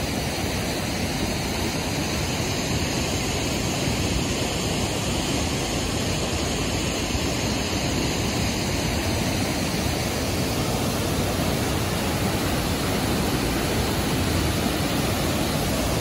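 Steady rush of a small waterfall spilling over a stone weir into a shallow pool, the falling water churning and splashing below.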